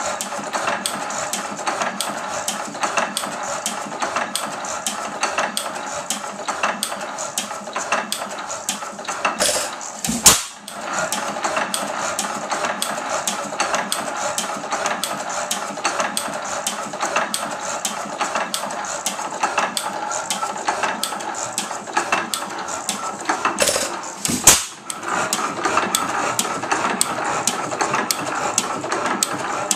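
1903 Fairbanks-Morse Type N 5 HP single-cylinder hit-and-miss gasoline engine running, with a steady, rapid mechanical clatter from its moving parts. Two much louder bangs stand out, about fourteen seconds apart.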